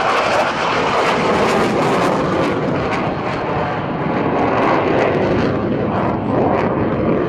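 Loud, continuous jet noise from a Saab JAS 39 Gripen's single Volvo RM12 turbofan as the fighter flies its display, swelling and easing slightly in brightness.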